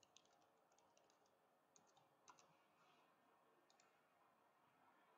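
Faint computer keyboard typing: short runs of quick key clicks in the first half and a couple more a little before the end, over near-silent room tone.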